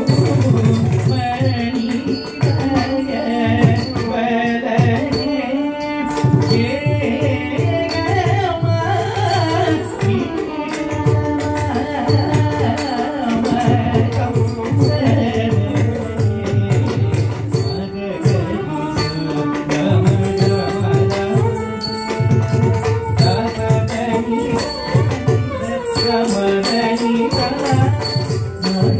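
Carnatic music in raga Todi, set to Adi tala: a singer's gliding, ornamented melody over steady hand-drum strokes.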